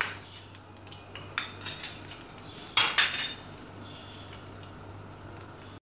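A spoon clinking against a clay handi several times, with a close cluster of knocks about three seconds in, over a faint steady low hum.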